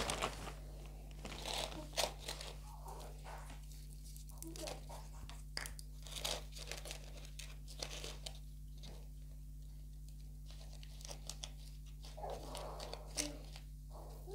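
Potting soil rustling and crunching as it is handled and pressed down by hand into a plastic plant pot, with scattered small clicks. The plastic potting-soil bag crinkles near the start.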